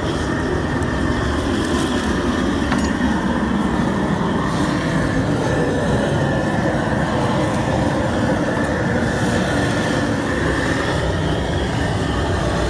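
Propane jet burner under a crawfish boil pot, running with a steady roar.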